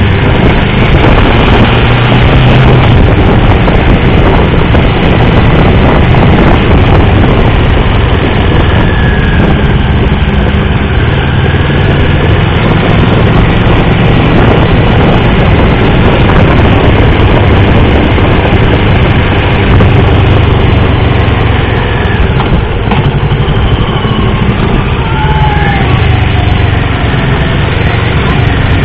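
Motorcycle engine running at speed through corners, heard onboard under heavy wind rush over the microphone; its pitch shifts up and down with the throttle.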